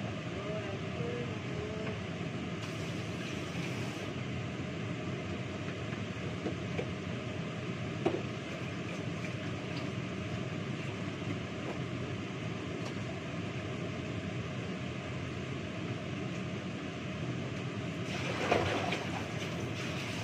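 Steady background hum with dishes being handled at a kitchen sink: a single sharp clink about eight seconds in and a brief clatter near the end.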